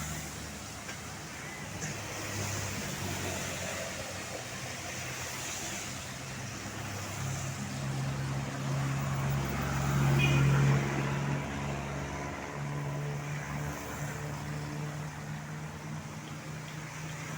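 Roadside traffic noise with a large vehicle's engine humming as it passes, growing louder to a peak about ten seconds in and then fading.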